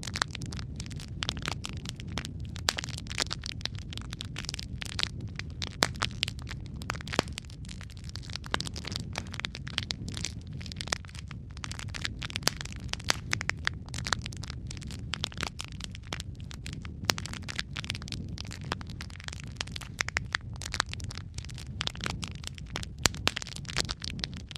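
Wood fire burning in a fireplace: a steady low rumble of flames with dense, irregular crackles and pops from the burning logs.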